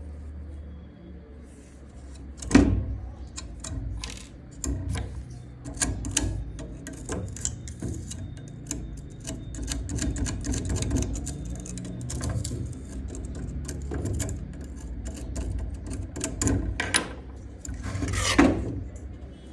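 Irregular clicks, knocks and rattles of handling over a low steady hum, with a sharp knock about two and a half seconds in and a longer scraping sound near the end.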